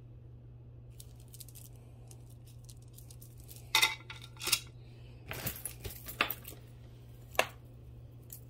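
Plastic beads and a metal chain clinking and clicking as a bead necklace is handled and hung on a display bust: scattered short clicks, louder near four seconds in, a quick cluster around five to six seconds and a last one near seven and a half.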